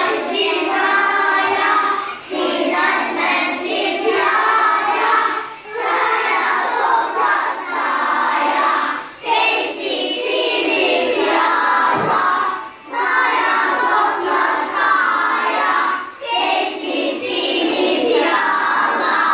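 A class of young schoolchildren singing a Bulgarian lullaby together, in phrases of a few seconds with short pauses for breath between.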